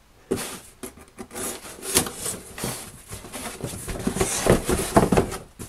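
A cardboard box being opened with a folding knife: irregular scraping and cutting through the packing tape, with cardboard rubbing and a few sharp clicks.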